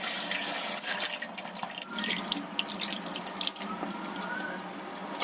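Tap water running into a kitchen sink while raw chicken pieces are rinsed by hand, with splashing and small knocks throughout.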